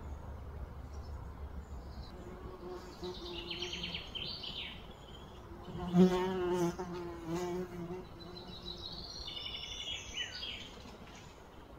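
A flying insect buzzing close to the microphone, its pitch wavering as it moves, loudest about six seconds in.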